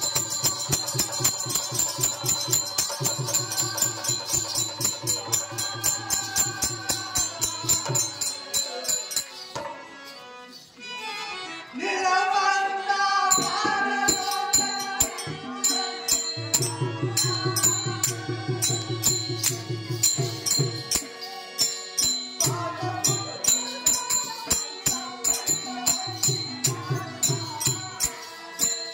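Live folk-theatre music: small cymbals or bells clinking on a steady beat over drum and a melody line, with a voice singing. The music thins out and nearly stops about ten seconds in, then starts up again.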